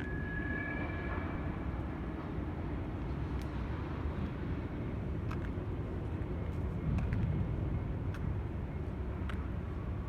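A steady low droning rumble from an unidentified source, which the recorder takes to be a strange sound coming from the sky. A faint high whine fades out in the first two seconds, and a few faint clicks sound here and there.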